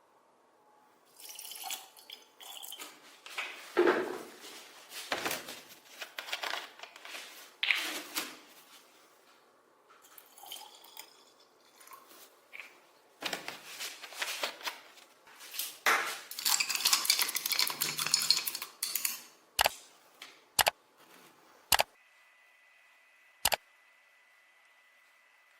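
Metal parts being handled on a hard surface: irregular clinks and knocks, a few seconds of scraping or rubbing noise past the middle, then four sharp separate clicks near the end.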